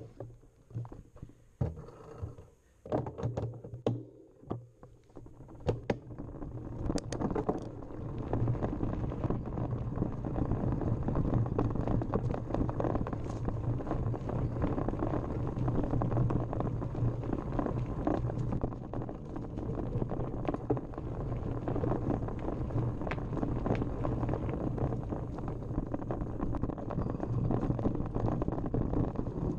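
Mountain bike descending a rough forest trail. For the first several seconds there are scattered clicks and knocks as it gets going. From about eight seconds on, tyres rumble steadily over dirt and stones, with the bike rattling over the bumps.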